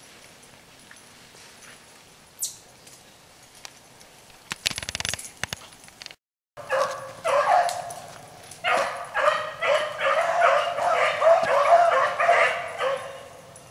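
Hounds yelping and baying in a rapid run of short, high calls that starts about halfway through and goes on for several seconds. A brief rustle comes just before it.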